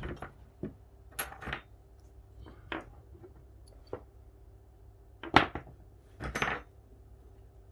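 Small metal clicks and clinks as a picked Assa euro cylinder is taken apart and its parts handled and set down. There are several separate sharp clicks, the loudest about five seconds in, and a short rattling clatter a second later.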